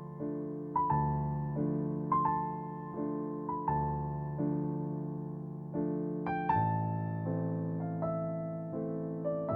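Slow, calm piano music: single notes struck about every second and a half over soft held chords, each note fading away.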